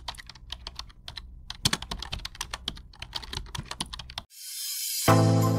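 Keyboard-typing sound effect for typed-on title text: quick irregular key clicks for about four seconds. Near the end a short rising swell leads into music with loud chords.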